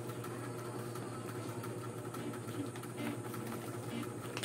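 Steady low mechanical hum, like a small motor running, holding an even level throughout.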